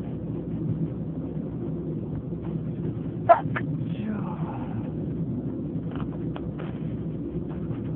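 Steady low rumble of a train carriage, with one sudden loud sneeze about three seconds in, part of a sneezing fit.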